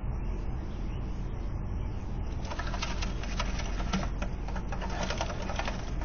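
A bird's wings flapping as it lands among loose nest twigs, a rapid flurry from about two and a half seconds in until just before the end, over a steady low hum.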